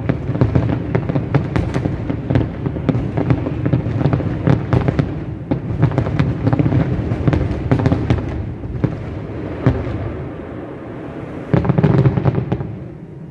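Fireworks display in full barrage: rapid, overlapping bangs and crackles, with a louder cluster of booms near the end before it dies down.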